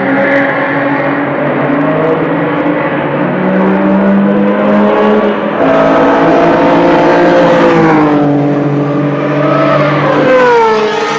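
Sports cars at speed on a race circuit's straight, several engines heard at once; one grows suddenly louder a little past halfway, and the engine notes drop in pitch as cars pass close by, once shortly after that and again near the end.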